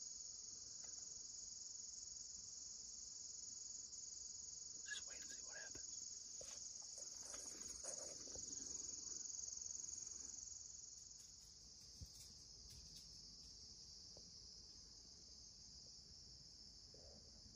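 Steady, high-pitched chorus of insects, crickets among them, running unbroken. A few soft rustles and knocks in the first half come from the camera being handled on its tripod.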